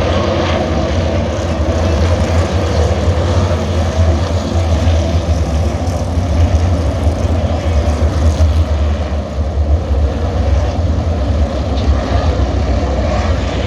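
Engines running, a loud steady rumble without clear rises or falls.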